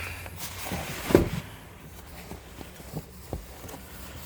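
Handling noises: one thump about a second in, then a few light clicks.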